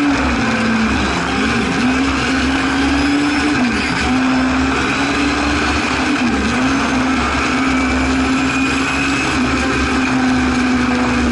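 Singer Chamois race car's rear-mounted Hillman Imp four-cylinder engine running hard at high revs under acceleration from a race start, heard from inside the cabin. Its note holds high with three or four brief dips, then settles a little lower after about four seconds.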